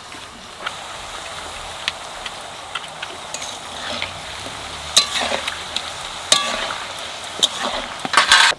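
Papdi (small flat discs of dough) sizzling steadily as they deep-fry in hot oil in an aluminium kadai, with a ladle knocking and scraping against the pan. There is a ringing metal clank about five seconds in and again just after six, and a burst of louder clatter near the end.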